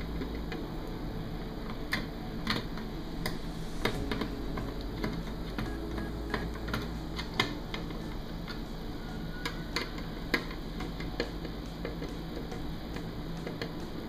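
Hand screwdriver turning screws into a monitor's metal chassis: scattered small clicks and ticks of the bit and screws against metal, over a steady low hum.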